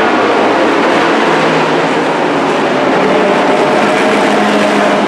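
A pack of dirt-track racing trucks running on the track, several engines overlapping in a loud, steady drone.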